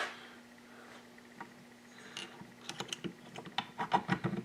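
A quick run of light clicks and taps from small metal parts being handled: the transmission gears and shaft parts of a Yamaha WR426F dirt bike engine being fitted together, starting about two seconds in. A faint steady hum lies underneath.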